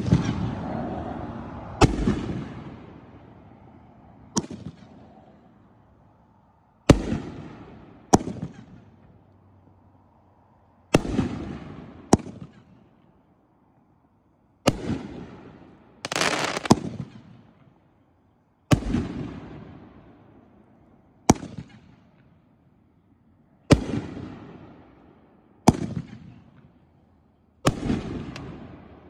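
A 500-gram consumer fireworks cake firing its 2-inch shells one after another. Sharp bangs come every one to two and a half seconds, from shells lifting off and bursting overhead, and each bang trails off in a long echoing fade.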